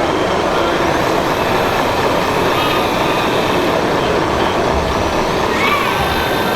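Steady, loud din of RC model trucks and construction machines running in a crowded exhibition hall, with a brief high whine a little before the end.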